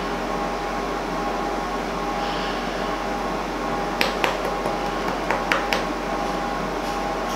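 Plastic syrup bottle crackling and clicking in a quick run of sharp clicks as it is squeezed upside down, about four seconds in, over a steady background hiss and hum.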